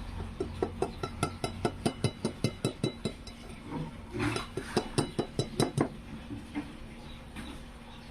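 Rapid, even clinking of a utensil against a dish or pan, about five clinks a second, in two runs with a short pause between them.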